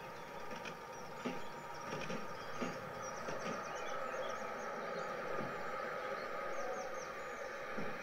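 Dubbed railway ambience, not sound from the model: a train's steady hum and rushing noise growing slowly louder, with small birds chirping high above it in short bursts.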